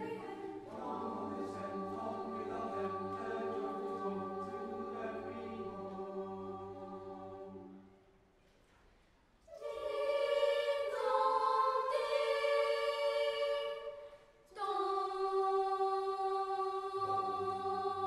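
School choir of girls' and boys' voices singing a carol in long held chords. About eight seconds in the singing stops for a second and a half, then comes back louder, with a short breath-break a few seconds later.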